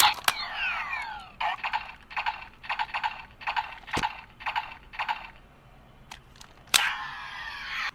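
CSM Zect driver toy belt playing its electronic sound effects through its small speaker: a sharp click, a falling sweep, then a pulsing electronic loop of about three beats a second. Near the end comes another sharp click and a second falling sweep.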